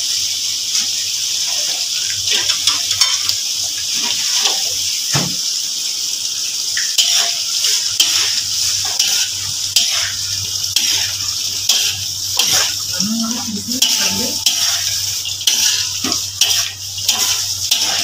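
Snow peas and shrimp sizzling as they are stir-fried in a metal wok, with a spatula scraping and clinking against the pan. The scraping strokes come more often in the second half.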